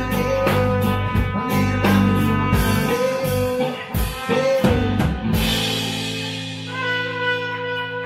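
Live rock band of trumpet, electric guitars, bass and drum kit playing, with the trumpet bending its notes over the drums. About five seconds in the drumming stops and the band holds a chord that rings on under a fading cymbal wash.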